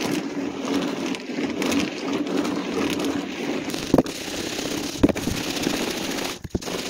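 A rusty steel fuel tank being shaken by hand with a box of self-tapping screws, corrosive toilet cleaner and water inside: the screws rattle and the liquid sloshes, scouring rust and varnish off the tank's inside walls. The rattling runs without a break, with two sharp knocks about four and five seconds in and a short pause near the end.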